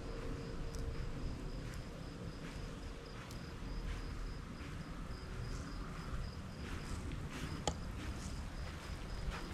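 Crickets chirping steadily in a high, even pulse, about four chirps a second, over a low rumble. There is a sharp click near the end.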